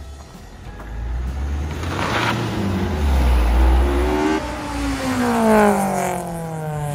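Opel Astra estate car pulling away and driving past. Its engine note rises in pitch as it accelerates, then falls steadily over the last two seconds or so as the car passes and moves off.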